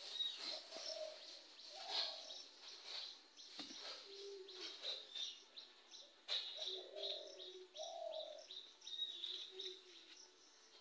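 A dove cooing in several short, low phrases while small birds keep up high, repeated chirping.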